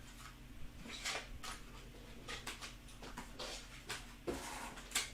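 Scattered soft clicks and rustles of trading cards and their packaging being handled, over a faint steady electrical hum.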